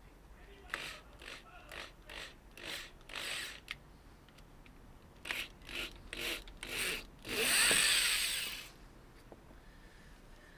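Stanley power drill boring a hole through a plastic motorcycle front MX fender, started in a series of short trigger bursts, then run for one longer stretch of about a second and a half near the end.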